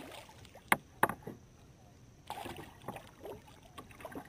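A hooked bass thrashing and splashing at the water's surface beside a canoe, with two sharp knocks close together about a second in and scattered light splashes and clicks after.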